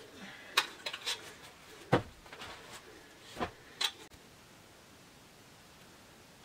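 Several short knocks and clinks in the first four seconds, the loudest and deepest about two seconds in, as a metal bowl and flatbreads are set down on a cloth spread on the floor.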